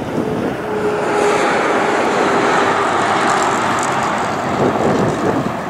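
Kenworth K200 prime mover hauling a heavy oversize load past on the highway. Its engine and tyre noise swells about a second in, holds, and eases near the end.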